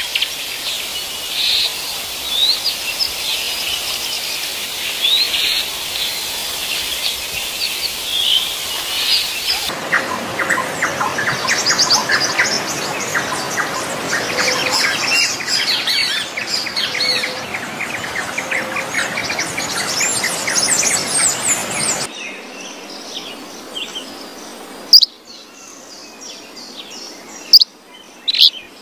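Many birds chirping and singing together. The sound changes abruptly twice: a dense run of quick chirps fills the middle, and the last few seconds are quieter, with a handful of short, loud, sharp calls.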